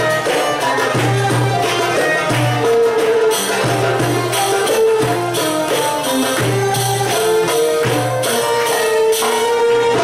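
Live Middle Eastern band music playing for belly dance: a melody line over a steady beat of hand percussion with tambourine jingles.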